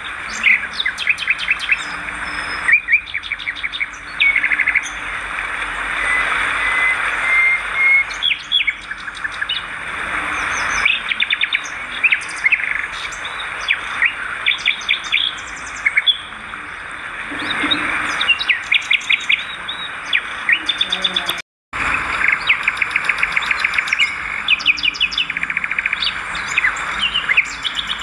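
Swiftlets calling: a dense, continuous chatter of short chirps and rapid clicking trills over a steady hiss. The sound cuts out completely for a moment about three-quarters of the way through.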